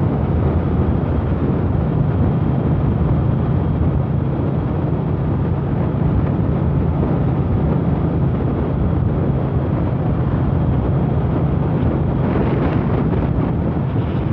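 Yamaha MT-07's parallel-twin engine running at a steady cruising speed, with heavy wind noise on the microphone.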